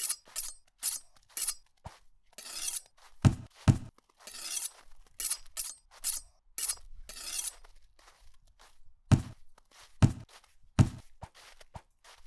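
A rapid run of foley crash effects: about a dozen short shattering, clinking bursts like breaking glass, mixed with heavy low thuds that take over in the second half.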